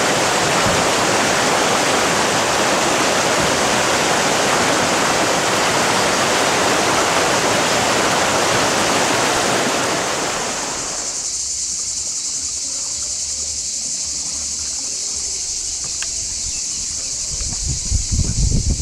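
River water rushing over a rocky rapid, a dense steady noise that cuts off about ten seconds in. After that only a fainter steady high hiss is left, with some low rumbling near the end.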